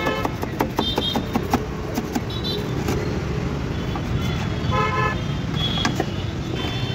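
Steady street traffic rumble with short vehicle horn toots, the clearest about five seconds in. Sharp clicks of a knife cutting through a toasted sandwich onto a cutting board come mostly in the first second or two.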